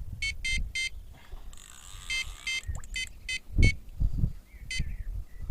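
Carp rod bite alarm giving about nine short, identical electronic beeps in uneven runs as line is pulled across its sensor, with low rumbling thumps underneath.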